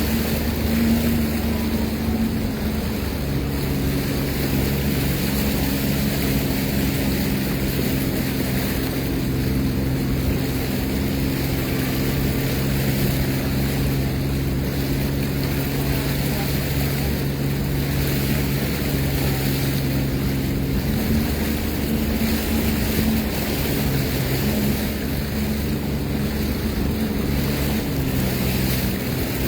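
Engine of a 2023 Sea-Doo Fish Pro personal watercraft running steadily under way, its note shifting slightly a few times, with water and wind noise.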